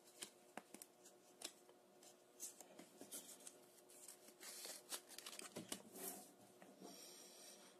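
Faint rustling and crinkling of thin plastic packaging with scattered light clicks, as a smartwatch screen protector's package is handled and the clear film taken out.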